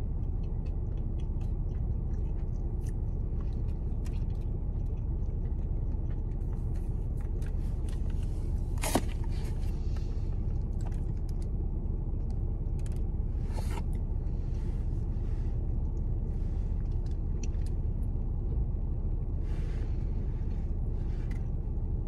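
Steady low rumble of a parked car running at idle, heard from inside the cabin, with scattered light clicks and two brief sharper sounds, one about nine seconds in and one a few seconds later.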